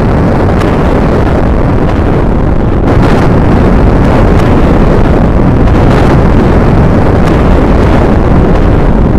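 Loud, continuous low rumbling roar, a sound effect of a massive blast, with faint crackles now and then.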